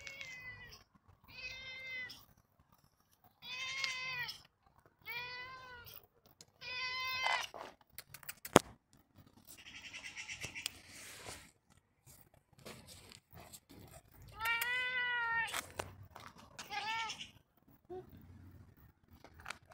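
Grey-and-white domestic cat meowing repeatedly: about seven drawn-out meows, each rising then falling in pitch, with pauses between them. A single sharp click a little before halfway is the loudest sound.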